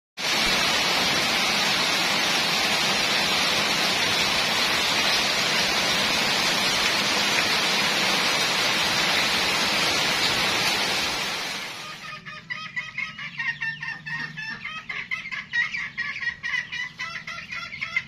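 Heavy rain pouring steadily, fading out about eleven seconds in. Then a flock of poultry calls busily, many short overlapping peeps and clucks.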